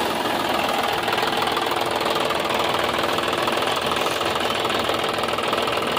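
John Deere tractor and the maize harvesting machine it drives, running steadily with an even mechanical drone.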